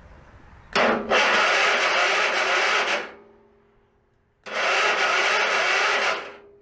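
Starter on a 1997 Murray Lawn General lawn tractor cranking the cold engine twice, each time for about two seconds. The engine turns over but does not catch, a sign of a hard cold start.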